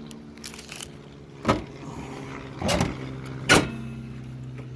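2012 Ford F-150's engine idling steadily, running again after it had cranked without starting because of an overheated fuse 27. Several sharp knocks and clicks sound over the idle, about a second apart.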